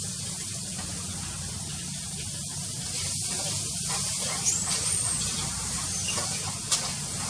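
Steady high hiss over a low rumble. A short high chirp rises and falls a little past halfway, and a sharp click comes near the end.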